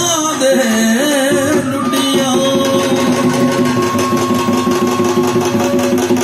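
Punjabi folk music accompanying a Luddi dance, played loud: a voice sings a winding melody at first, then a held drone continues over a fast, steady beat of about four strokes a second.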